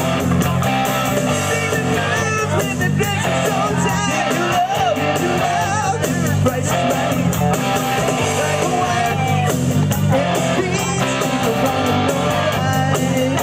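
Rock music: guitar-led band with a singing voice.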